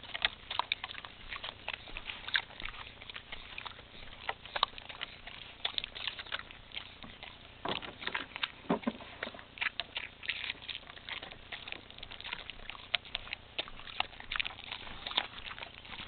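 A dog eating small raw mullet off the boards: irregular clicks of biting and chewing, with a couple of louder snaps about halfway through.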